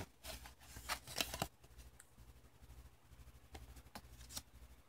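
Light rustling and tapping of a printed card and a cardboard box being handled, a cluster in the first second and a half and a few more near the end, over a faint low hum.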